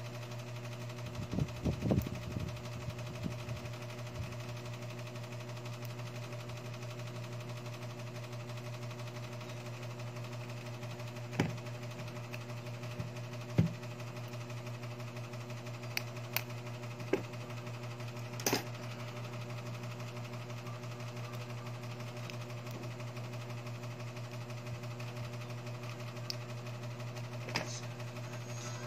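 A steady low hum, with scattered sharp clicks and taps from tweezers and small iPhone 6s screen-assembly parts being handled. A quick run of taps comes a couple of seconds in, and single clicks follow every few seconds.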